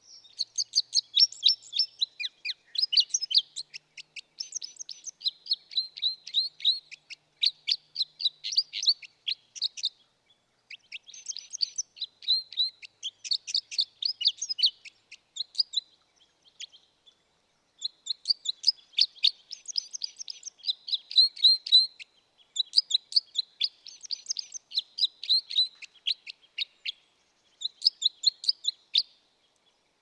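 Red crossbill (Loxia curvirostra) calling: rapid runs of short, sharp chip notes in bouts, with a pause of about two seconds past the middle.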